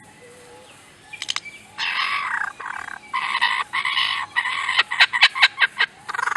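Lyrebird calling, most likely mimicking other sounds: a couple of clicks about a second in, then several harsh, rasping bursts, and a fast run of sharp clicks near the end.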